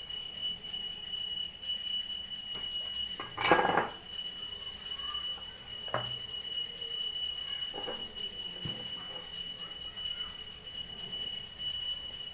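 Handling sounds as cheese slices are laid on the bread: a short rustle about three seconds in and a few light taps after it, over a steady high-pitched whine.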